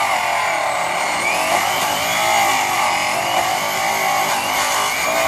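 High-speed handheld rotary polisher running with its buffing wheel pressed against an aluminum truck wheel, doing the initial cut with brown Tripoli compound. A steady high whine over hiss, its pitch wavering slightly as the load on the wheel changes.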